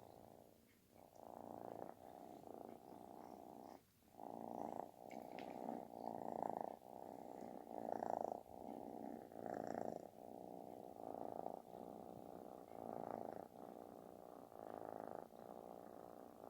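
Calico kitten purring loudly with a snore-like rasp. The purr swells and eases in cycles of about a second as the kitten breathes in and out, with a brief break about four seconds in.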